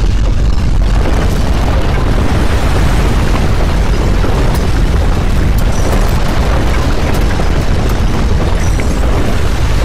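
Loud, continuous deep rumble with a noisy rush over it: the sound of strong earthquake shaking.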